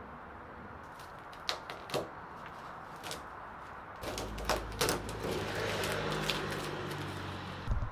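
Tape being peeled off a car bonnet by hand, giving irregular crackles and sharp ripping clicks as it comes away from the fresh paint. A low rumble sets in about halfway through.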